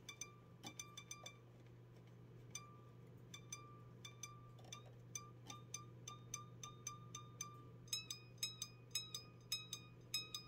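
Quiet, high-pitched plinks of a string on a Koloss GT-6 electric guitar, the same note tapped over and over, coming faster and louder in the last few seconds, over a steady low electrical hum.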